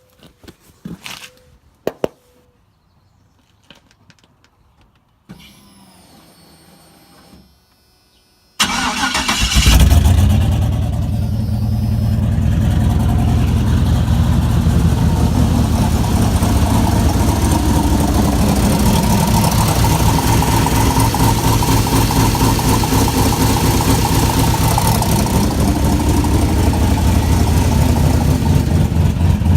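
A few clicks, then a Walbro 450 in-tank electric fuel pump hums quietly for about two seconds as it primes. A second later the turbocharged 5.3-litre LS V8 cranks and fires, flares up in revs, and settles into a steady idle.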